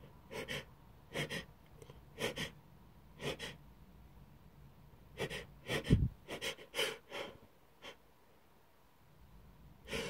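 A person's short, gasping in-breaths, about one a second, then a quicker run of them with the loudest about six seconds in: a sneeze building from ground black pepper tickling the nose, not yet coming.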